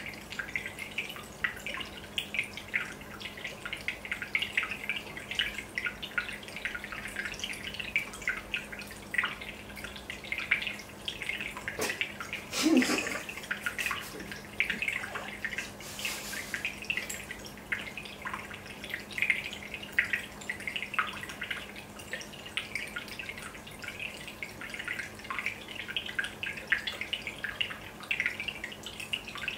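Aquarium air-stone bubbles rising and popping at the water surface: a steady, dense patter of small pops and drips over a faint steady low hum, briefly louder about halfway through.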